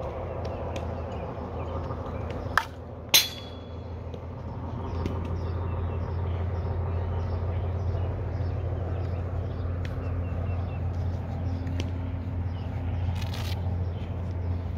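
Softball bat hitting a pitched ball about three seconds in: a sharp crack with a brief ringing ping, just after a fainter knock. A steady low hum runs underneath.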